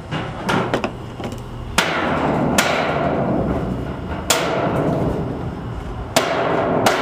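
Hammer strikes on a metal carport roof panel, knocking out dents: about seven irregular blows, each leaving the sheet metal ringing.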